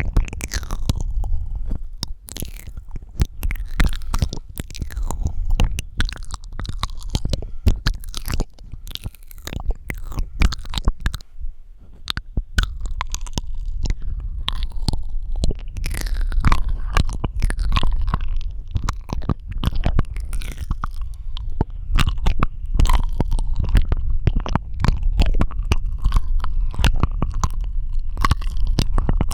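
Close-miked ASMR mouth sounds: a dense run of wet clicks, tongue pops and smacking, with a short lull about eleven seconds in.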